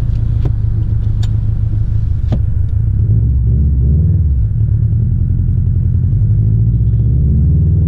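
The turbocharged 2.5-litre flat-four of a 2019 Subaru WRX STI, running under way and heard from inside the cabin as a steady low rumble. Its pitch shifts a few seconds in as the car picks up speed. A few faint clicks come in the first few seconds.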